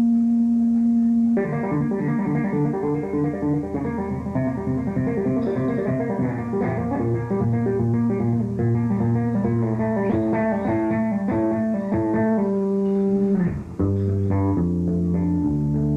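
Electric bass guitar solo: one held note, then fast runs of notes from about a second and a half in, played partly by tapping on the fretboard.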